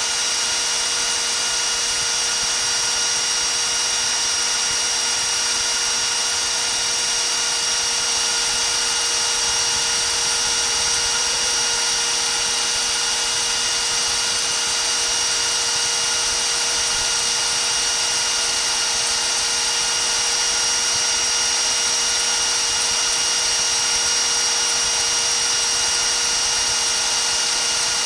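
Die grinder on a home-made tool post grinder running at a steady high whine with a hiss of grinding, grinding a metal lathe's chuck jaws back into alignment.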